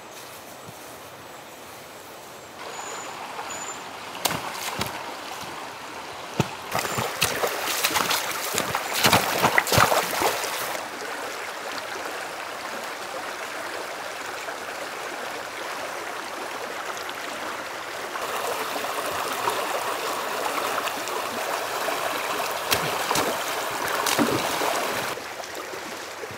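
Stream water running steadily, with a run of loud clicks and knocks from about four to eleven seconds in and a few more near the end.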